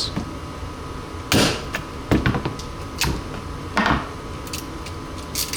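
A few sharp knocks and clacks of hand tools worked against an airsoft lower: four loud strikes spaced about a second apart, with lighter clicks between them.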